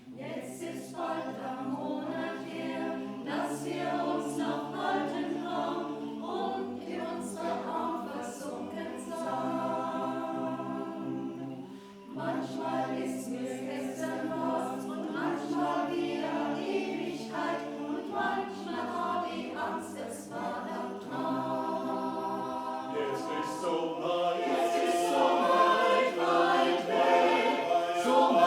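Choir singing a Schlager song in several-part harmony, with a short break between phrases about twelve seconds in and growing louder near the end.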